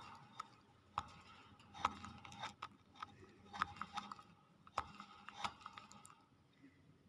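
Irregular sharp clicks and taps, a few a second, some ringing briefly, from around a pet hill myna's cage.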